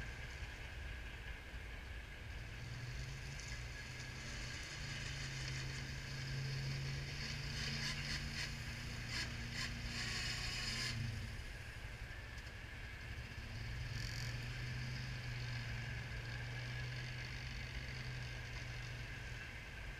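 Polaris Ranger 6x6 UTV engine running as it manoeuvres, its pitch rising and falling. From about eight to eleven seconds in, with a brief return near fourteen seconds, the KFI snowplow blade scrapes and rattles as it pushes snow toward the pile.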